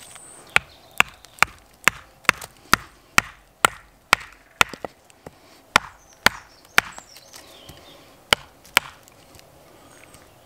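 Batoning: a baton knocking on the spine of a thin, high-carbon steel bushcraft knife, driving it down through a stick of wood. About fifteen sharp knocks, a little over two a second at first, then spaced further apart, with the last two a few seconds later.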